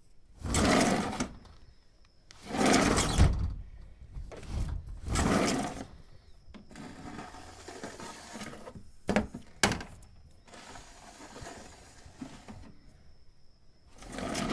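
A window being opened and closed several times: three scraping slides, each about a second long, then a quieter rushing stretch with two sharp clicks near the middle, and another slide starting near the end.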